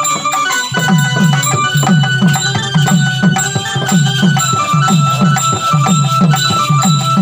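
Live folk-drama band music: a pitched drum beats a steady rhythm of about three strokes a second, each stroke falling in pitch, under a melody line. The drum comes in under a second in.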